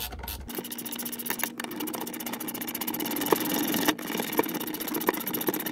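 A small motor starts about half a second in and runs with a steady buzz, with a few light clicks over it.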